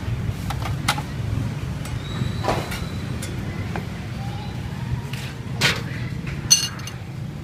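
Knocks and clinks of metal cookware and utensils being handled over a steady low rumble, ending in a sharp ringing clink of metal on metal near the end.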